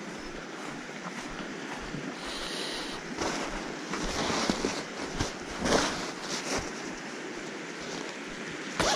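Steady rushing noise of river water and wind, with bursts of rustling and handling noise starting about three seconds in.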